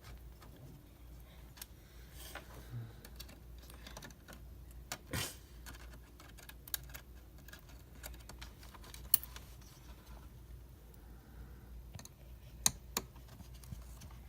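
Sparse light clicks and taps of small laptop parts being handled while an internal cable connector is pressed into place, with a few sharper clicks about nine seconds in and near the end.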